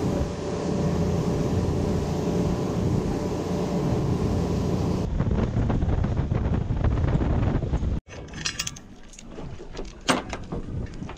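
Boat under way at speed, its Suzuki 300 outboard running under loud wind and water noise. Near the end, after a sudden cut, anchor chain clinks and knocks as it is handled at the bow.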